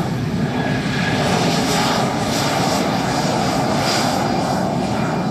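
F-16 Fighting Falcon jet engine running loud and steady, a continuous rushing roar with a faint whine over it.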